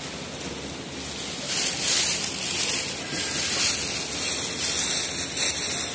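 A large white sheet rustling as it is spread over the pull-out bottom plate of a manual heat press. The noise swells about one and a half seconds in and stays uneven.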